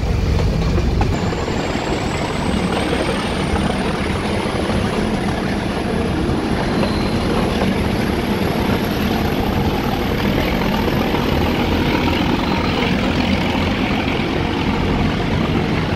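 Nilgiri Mountain Railway toy train running uphill, heard from an open coach window: a steady rumble of the diesel-hauled train's wheels on the rails with wind noise. A faint high whine climbs slowly in pitch from about a second in.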